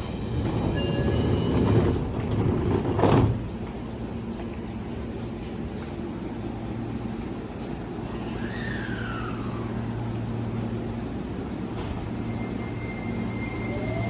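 Seibu 20000 series electric train standing at a platform: two loud bangs in the first few seconds over a steady electrical hum, then near the end the Hitachi IGBT-VVVF inverter starts up with high steady tones and a rising whine as the train begins to move off.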